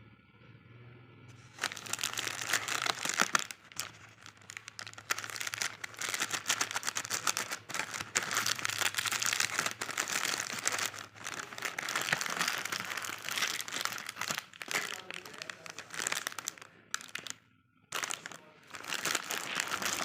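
Plastic wrapper of a packaged cake slice crinkling as it is handled, starting about two seconds in, with a brief pause near the end.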